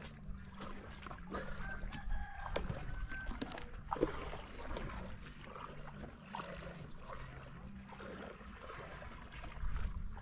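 Water trickling and lapping at the shoreline, with scattered small clicks and knocks throughout.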